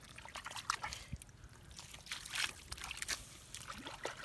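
Muddy water trickling and sloshing, with scattered small wet clicks and squelches as bare hands and feet work in shallow mud.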